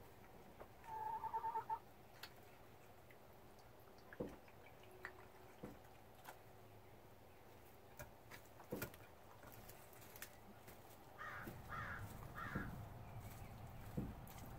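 Red Rock hens calling softly: a short trilling call about a second in and three quick calls near the end, with scattered light taps in between.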